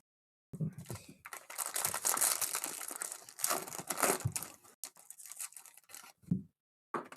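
Trading card pack wrappers being torn open and crinkled: a few seconds of dense crackling and tearing, then lighter rustling.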